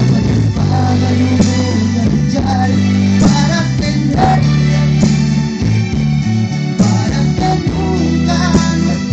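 A man singing into a hand-held microphone over backing music, both played loud through a party sound system. A prominent bass line steps from note to note underneath.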